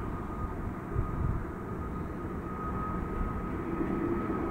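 Distant jet airliner engines running at low taxi power: a steady thin whine over a low rumble.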